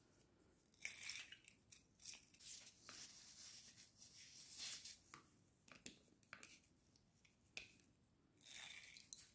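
Faint paper rustling and light plastic clicks as hands handle a hand-held lime squeezer and wipe it with a paper towel.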